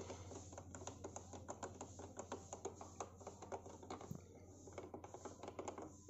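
Front-panel buttons of a Roland Juno-Di synthesizer pressed over and over, giving a quick run of light plastic clicks, several a second. The synth has hung, so the buttons barely respond.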